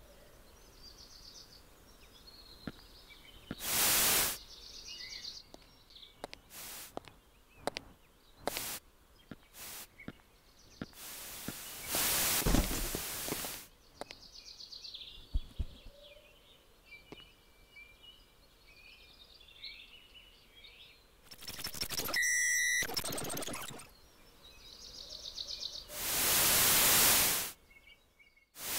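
Outdoor ambience with birds chirping faintly, broken by four loud bursts of hiss-like noise, the loudest around the middle, and a scatter of short clicks early on.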